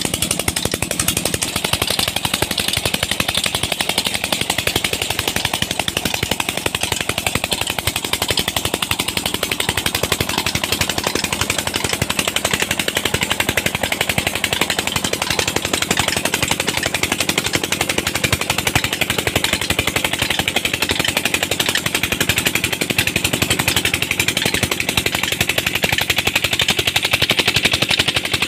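A Petter-type diesel engine driving a tube-well pump, running steadily with a fast, even knock, over the rush of water gushing from the outlet pipe into the tank.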